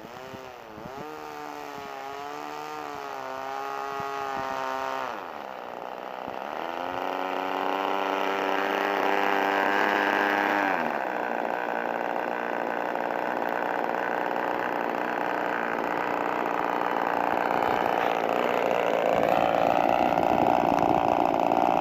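Super Tigre .51 two-stroke glow engine with a Slimline Pitts-style muffler, running in a 1/6-scale Piper PA-25 Pawnee RC model as it taxis on grass. The revs rise and fall with the throttle, settle to a lower idle about eleven seconds in, and the engine grows louder as the model comes closer.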